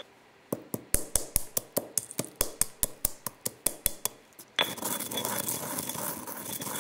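Stone pestle pounding whole allspice, coriander and mustard seeds in a stone mortar, about five sharp knocks a second. From about four and a half seconds in it turns to a steady grinding as the seeds are crushed.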